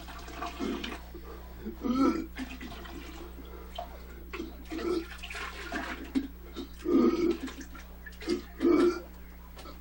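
A man belching loudly about five times, each burp under a second and spaced a second or two apart, over a steady low hum.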